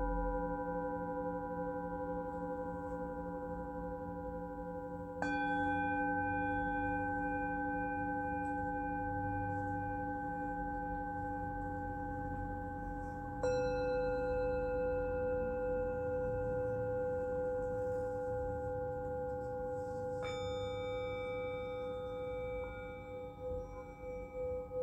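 Singing bowls ringing in long, overlapping tones. New bowls are struck about five seconds in, near the middle, and about twenty seconds in, each adding fresh tones over those still ringing. Near the end the sound begins to pulse.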